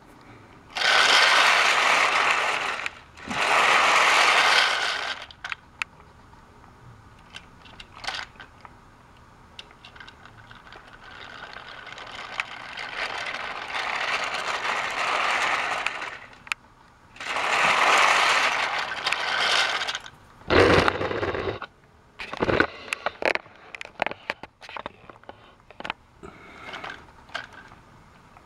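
Battery-powered Trackmaster toy train and its plastic trucks running past on plastic track: a scraping rattle that swells and fades several times. In the last third it turns into scattered clicks with a few low knocks.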